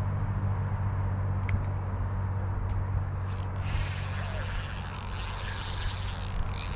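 Steady low drone of highway traffic from a road right beside the creek. About three and a half seconds in, a steady high-pitched buzz joins it.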